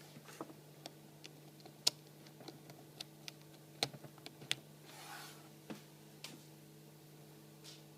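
Irregular light clicks and taps of hand handling, about a dozen of them, with the sharpest near two and four seconds in and a brief soft rustle about five seconds in, over a steady low electrical hum.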